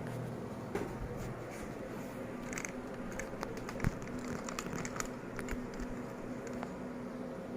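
Quiet room tone with a steady low hum, broken by scattered small clicks and taps, with one sharper knock about four seconds in.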